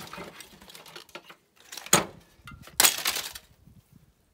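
Rattling and clatter of a CRT TV's circuit board and its wires being pulled out of the cabinet. A sharp knock comes about two seconds in, and a louder, longer clatter follows about a second later.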